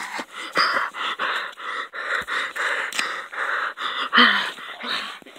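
A person breathing hard and fast right at the microphone, short noisy gasps about three a second.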